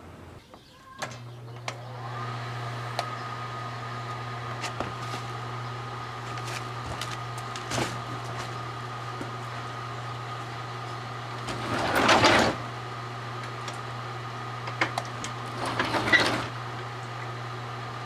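Microwave oven starting with a few clicks, then running with a steady low hum and a faint steady whine. Two brief louder noises break in, about two-thirds of the way through and again near the end.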